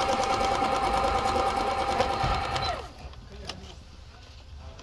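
Singer Fitline 6700 computerized sewing machine running an overlock stitch, with a steady motor whine and fast, even needle strokes. The motor winds down and stops about three seconds in, followed by a few faint clicks.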